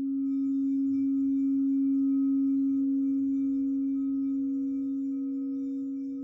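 Singing bowl sounding one steady, low, ringing tone with faint higher overtones. It swells slightly and then begins to fade slowly near the end.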